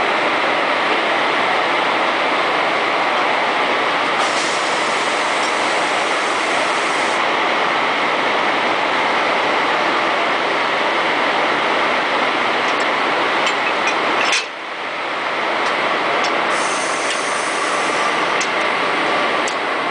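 WAG-7 electric locomotives standing with their machinery running: a loud, steady whirring roar. A higher hiss comes in for about three seconds near the start. About two-thirds of the way through the roar dips suddenly and swells back, with a few faint clicks around it.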